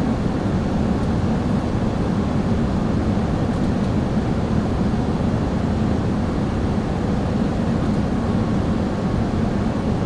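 Steady cabin noise inside an Airbus A380 airliner: an even, low rumble of engines and airflow, with no change in level.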